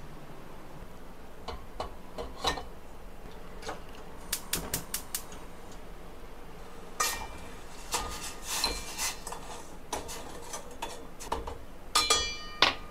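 Scattered clinks and knocks of a stainless steel saucepan and a metal spoon, with a quick run of sharp clicks about four seconds in. Near the end the spoon clinks against the pan and rings.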